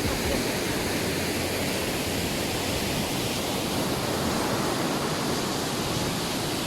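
Phophonyane Falls in full flood after heavy rain: a steady, even rush of falling water.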